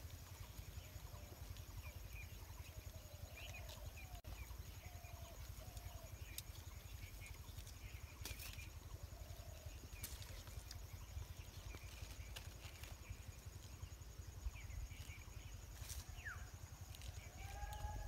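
Faint distant animal calls, a few short rising-and-falling cries in the first half, over a low steady rumble with a few small clicks.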